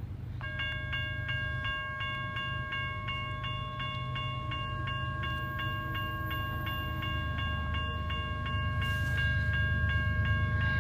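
Railroad grade-crossing bell starts ringing about half a second in, about three strikes a second. Under it is the low rumble of an approaching intermodal freight train, growing louder near the end.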